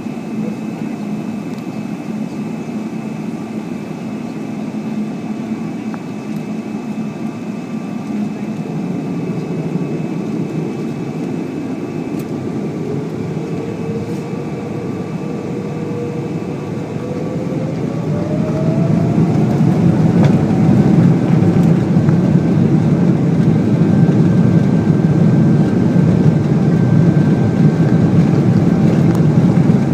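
Boeing 777-300ER's GE90 jet engines spooling up for takeoff: over a steady rumble, a whine rises in pitch about halfway through, then the roar grows much louder and holds as takeoff thrust is set.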